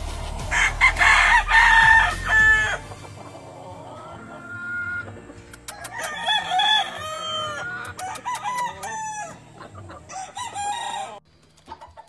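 Gamefowl roosters crowing repeatedly, mixed with clucking. Loud, drawn-out crows come in the first couple of seconds, and shorter crows and calls overlap later on.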